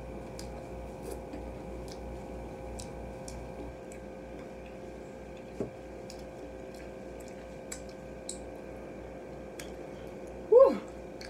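Chewing fried chicken: soft, scattered small clicks and squishes of eating, over a steady air-conditioner hum. A short hummed "mm" comes near the end.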